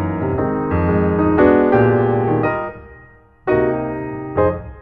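Background piano music: sustained notes and chords that die away briefly about three seconds in before a new chord strikes.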